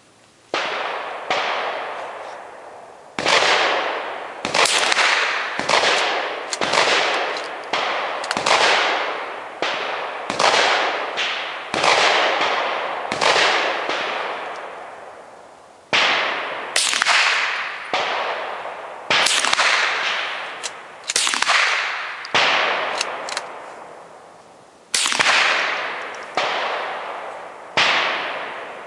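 Repeated .22LR rifle shots from more than one rifle, about two dozen sharp cracks at uneven intervals, sometimes two in quick succession, each trailing off in an echo that lasts about a second.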